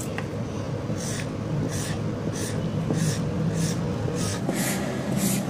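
Marker pen scratching short strokes across a paper strip, one line after another at about two strokes a second, over a steady low hum.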